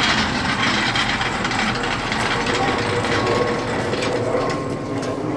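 A machine's engine running steadily as it carries a race car's body off the chassis.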